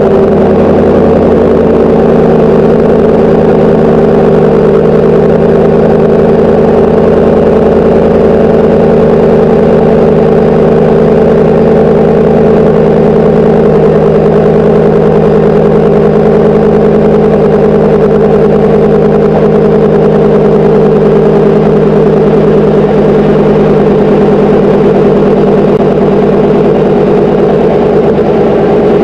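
GM 6.6 L L8T gas V8 with a GM Borla cat-back exhaust idling steadily after a cold start, heard right at the exhaust tip.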